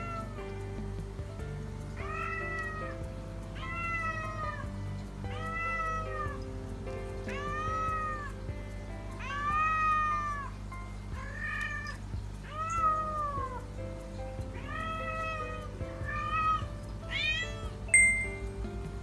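A Scottish Fold cat meowing over and over, about a dozen arching calls one to two seconds apart, crying with a stuffed toy held in her mouth as she calls for her absent owners. Steady background music plays underneath, and a brief sharp sound comes near the end.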